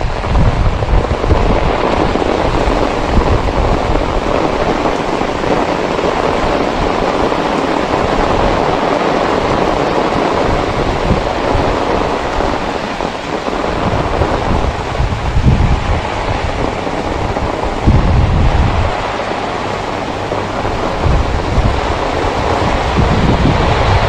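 Heavy rain falling steadily on a wet concrete lane. Gusts of wind buffet the microphone with low rumbles several times, most strongly in the second half.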